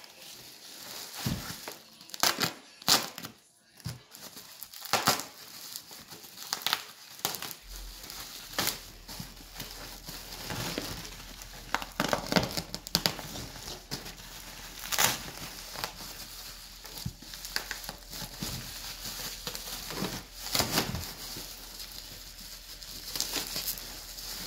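Bubble wrap and plastic bags of polystyrene packing peanuts being handled, pulled apart and cut open with a knife: irregular crinkling and rustling with sharp crackles and rips.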